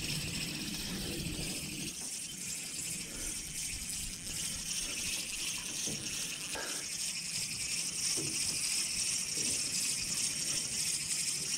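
Steady high-pitched outdoor hiss with a faint low rumble beneath it, and one soft knock about six and a half seconds in.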